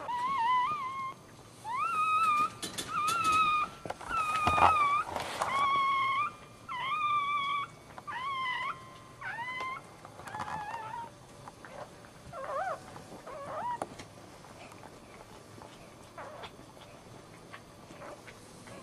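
Newborn dachshund puppy squealing: a run of about a dozen high, wavering cries through the first two-thirds, becoming fainter and sparser near the end. A short bump sounds about four and a half seconds in.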